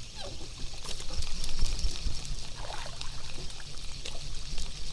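Water trickling and sloshing against a small boat, over a steady low rumble, with scattered small clicks.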